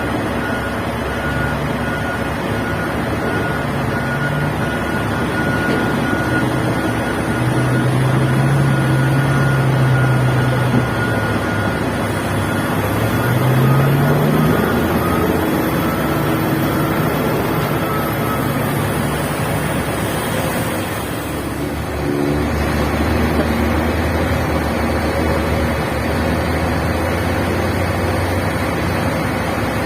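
Heavy diesel engines of a large mining excavator and haul truck running steadily, the engine note rising and falling under load. About two-thirds of the way through it dips briefly, then settles on a new steady note.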